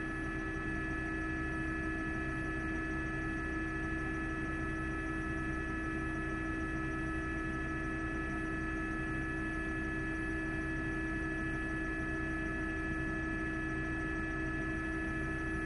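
A steady drone of several held tones, unchanging in pitch and level.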